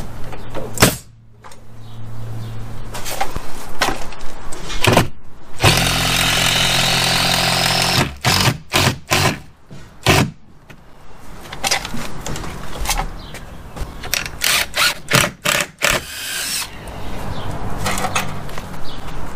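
Power drill driving screws into wood: one steady run of about two seconds near the middle, with shorter bursts and a series of sharp clicks and knocks as fittings are handled.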